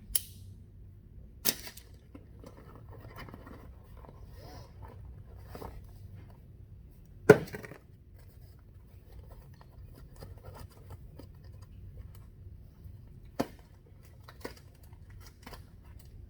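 Cardboard box and packaging being handled and opened: a few sharp knocks, the loudest about seven seconds in, with light rustling and scraping between them.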